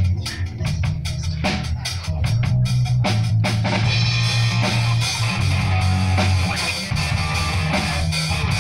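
Live rock band playing: drum kit and electric guitar over a heavy, steady low end. The playing fills out about three and a half seconds in.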